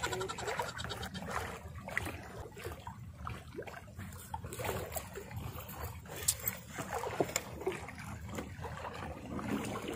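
Sea water lapping and splashing at the shoreline in irregular small splashes over a low rumble.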